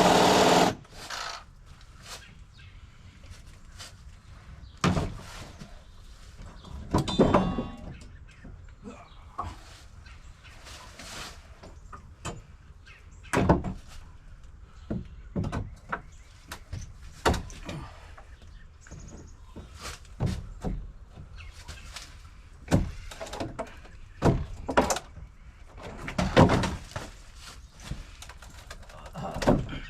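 A power tool running at the start cuts off under a second in. Then come scattered knocks and thuds of work on a deck, irregularly spaced, with some louder ones around 13, 17 and 24 to 27 seconds in.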